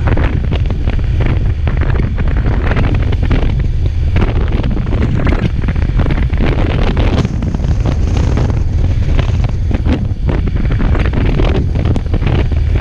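Loud wind buffeting on the microphone of a moving motorcycle, with the motorcycle running steadily underneath.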